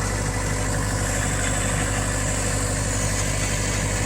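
Mini excavator's engine running steadily, an even drone with no change in speed.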